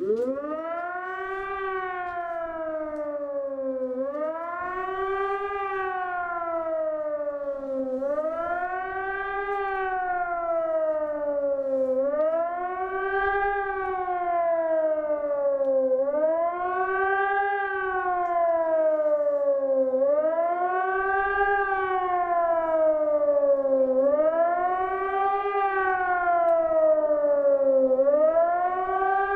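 Hörmann ECN 600 electronic siren sounding the German public warning signal ('Warnung der Bevölkerung'): a howl rising and falling in pitch about every four seconds. It comes on suddenly and grows gradually louder.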